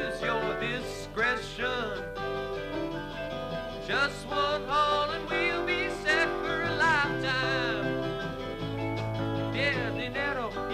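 Live band music: a country-flavoured song with guitars and a singer's voice.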